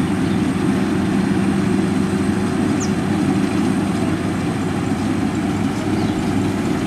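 Combine harvester's diesel engine running steadily: a constant low drone.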